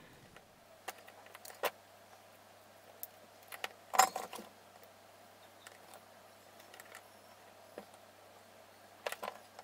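Scattered light clicks and taps of a plastic trigger-switch assembly and small tools being handled on a work mat, the loudest a cluster about four seconds in and a few more near the end, over a faint steady low hum.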